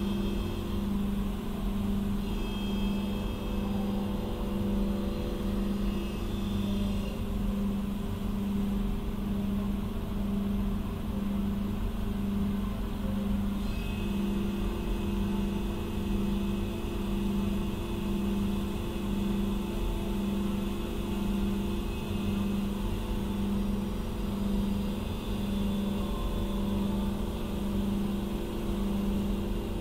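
CNC machine running: a steady hum that pulses about once a second, with thin whining motor tones that change pitch every several seconds as the machine moves.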